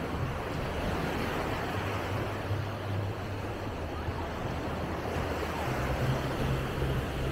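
Steady wash of waves on a sandy beach, with a low rumble underneath.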